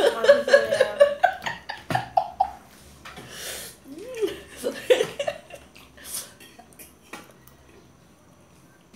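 A woman laughing in quick bursts for the first couple of seconds, with a fork clinking on a metal plate. Then a breathy blow of air, a few short vocal sounds, and quieter eating noises.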